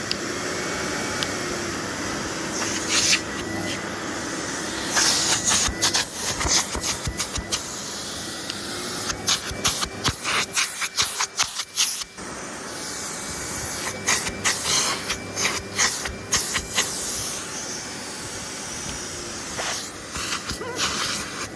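Numatic Henry HVR200-22 vacuum cleaner running on its low power setting: a steady motor hum with rushing airflow hiss, broken by many sharp clicks and crackles through the middle, with a brief drop in level about halfway.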